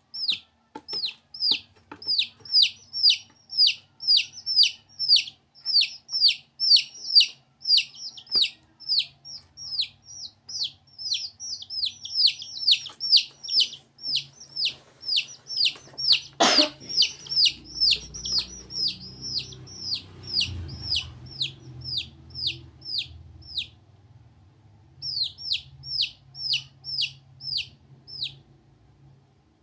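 Domestic chicks peeping: a long run of short, high, downward-sliding peeps at about three a second, pausing briefly near the end. One sharp knock comes about halfway through.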